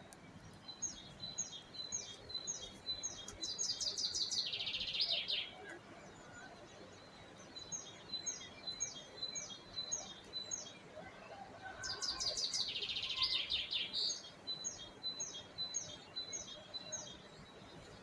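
Songbird singing: rows of short high chirps, about three a second, each building into a fast rattling trill that drops in pitch, the phrase given twice, with more chirps near the end.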